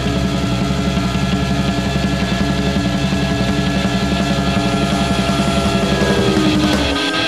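Rock music with a steady beat; the sound briefly drops away near the end.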